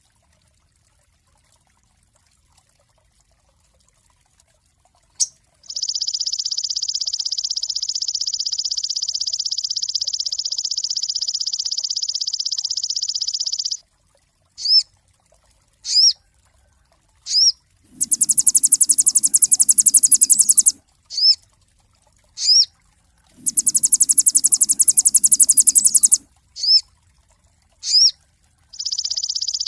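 Sogon songbird singing: after about five seconds of near silence and a single click, a long fast high trill lasting about eight seconds, then short rising whistled notes alternating with two harsh buzzing rattles of about three seconds each, and a new trill starting near the end.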